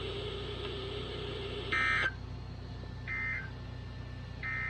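Three short buzzy digital data bursts about a second and a half apart, each a fraction of a second long: the SAME end-of-message code of an Emergency Alert System broadcast on NOAA Weather Radio, signalling that the alert is over.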